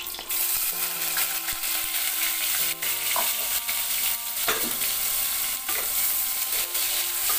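Sliced onions dropped into hot oil in a pressure cooker, setting off a sudden sizzle just after the start. The sizzle then runs on steadily as the onions are fried and stirred with a spatula.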